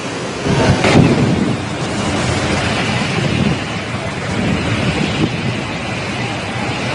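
Cyclone-force wind and rain buffeting the microphone in a continuous rushing noise, with low rumbling gusts. The loudest gust comes about half a second to a second in.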